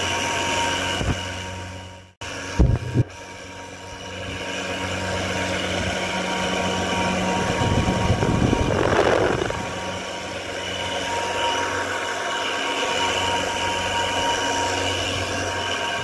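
Crompton TransAir 12-inch (300 mm) exhaust fan running with a heavy, steady hum and drone that comes from its bad, worn bearings. About two seconds in the sound cuts out abruptly, two sharp knocks follow, and the running noise builds back up over a few seconds, with a brief rushing swell of air noise about halfway through.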